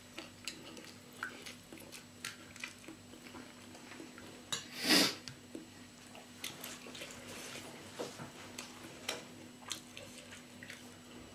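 Quiet eating sounds: scattered light clicks of a spoon and fork against ceramic plates and bowls, with one louder short whoosh about five seconds in.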